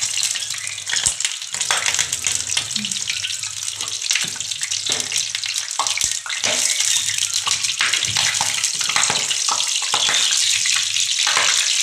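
Potato tikki coated in beaten egg shallow-frying in about half a cup of hot oil in a frying pan: steady sizzling, full of small crackles and pops, a little louder in the second half.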